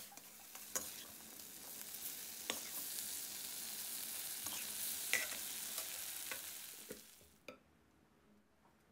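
Tofu cubes and chilies sizzling in sauce in a metal wok while a metal spatula stir-fries them, with a few sharp scrapes of the spatula on the pan. The sizzling stops suddenly about seven and a half seconds in.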